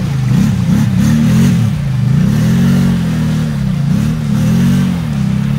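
ATV engine revving up and down in repeated short surges as the quad's large lugged mud tires spin and churn through a deep, water-filled mud rut.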